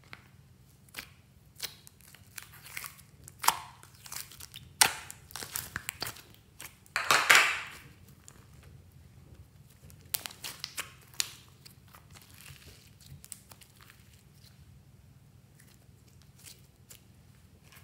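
Glossy slime being squeezed, folded and stretched by hand, giving a run of sticky crackles and pops. The crackling is densest about a third of the way in, with its loudest stretch a little before the middle, then thins out and fades near the end.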